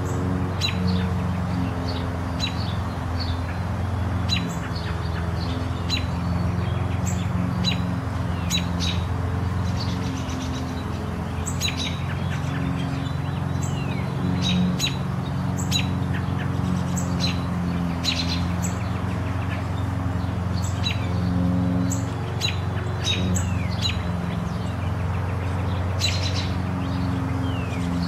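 Birds chirping in many short, high, quick calls throughout, over a steady low hum.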